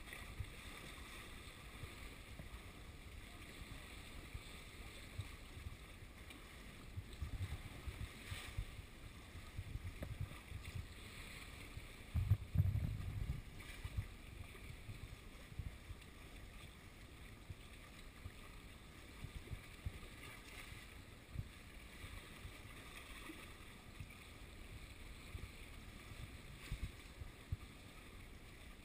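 Wind buffeting the camera's microphone in irregular low gusts, the strongest about twelve seconds in, over a faint wash of sea lapping against the rocks.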